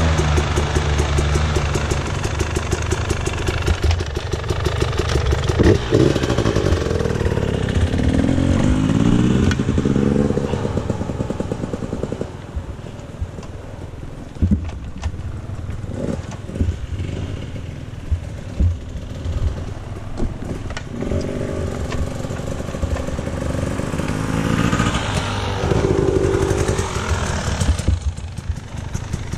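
Dirt bike engine revving up and down while being ridden, with rattles and knocks from the bike over rough ground. It runs loud with rising revs in the first half, drops to a quieter run through the middle, and picks up again near the end.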